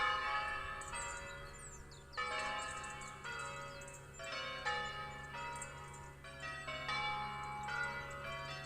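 Church bells ringing: several bells of different pitch struck one after another, about every one to two seconds, each ringing on and overlapping the next.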